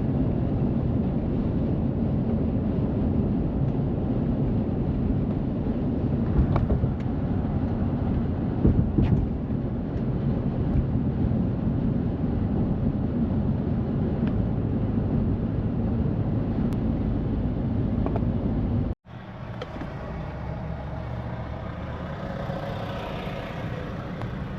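Car driving at highway speed: steady road and engine noise. It cuts out abruptly about three-quarters of the way through, then carries on quieter.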